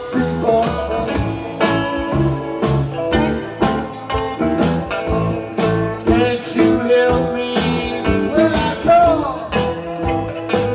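A band playing a blues number with guitar over a steady beat. Some notes bend in pitch a little after eight seconds in.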